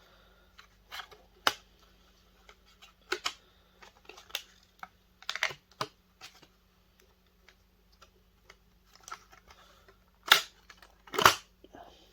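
Small metal parts and hand tools being handled while dismantling a projector: scattered light clicks and clinks, with two louder knocks near the end.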